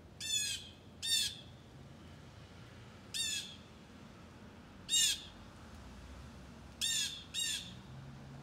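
A blue jay giving six harsh, scolding jeer calls, with long gaps and two in a quick pair near the end. These are the alarm screams jays raise at a hawk.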